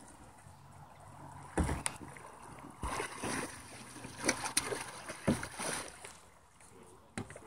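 Water splashing and sloshing around a capsized kayak as it is rolled back upright, in several uneven bursts between about a second and a half and six seconds in.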